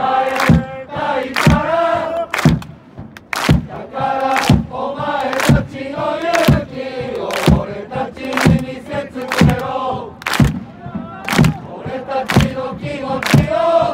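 Football supporters chanting together in unison, over a steady sharp beat about once a second.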